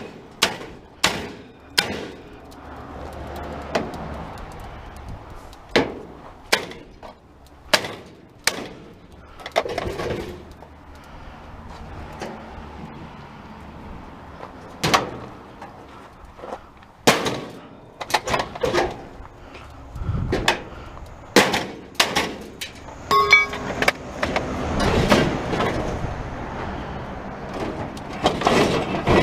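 Sharp metal knocks and clanks at irregular intervals, with scraping between them: a hand tool striking and prying the sheet-metal panels of an old electric stove as it is taken apart for scrap. About three-quarters of the way through, a struck piece of metal rings briefly.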